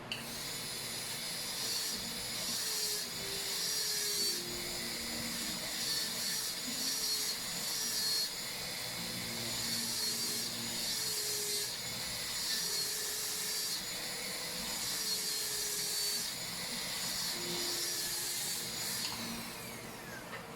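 High-speed dental handpiece (air-turbine drill) running at a high-pitched whine as it cuts a cavity preparation in a molar, the pitch shifting as it bears on the tooth; it starts abruptly and spins down in a falling whine near the end.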